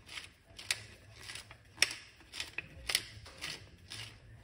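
Wooden pepper mill grinding black peppercorns: a series of short, crisp crunching clicks, about two a second, as the mill is twisted.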